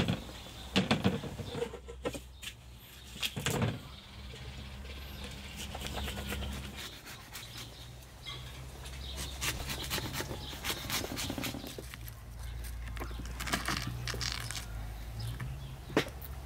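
Kitchen knife cutting through a watermelon's rind and flesh, with several sharp crunches and knocks, over a low steady hum.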